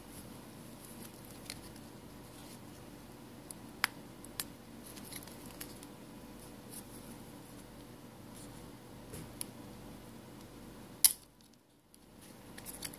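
Handling noise as a smartphone's metal frame is eased off the phone's internals: scattered small clicks and taps of parts knocking together, the loudest about eleven seconds in, over a faint steady hum.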